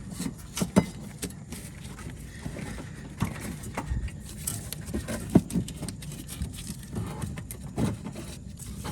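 Irregular clicks and light knocks of hands and tools working a belt into place on a golf cart's pulleys, with one sharper click about five seconds in.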